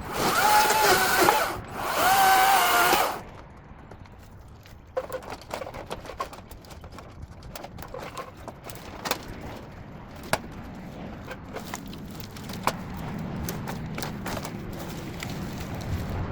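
Ego battery-powered chainsaw whining in two short bursts of about a second and a half each, its pitch wavering as it cuts. After that come scattered snaps and crackles of cut brush and branches being handled.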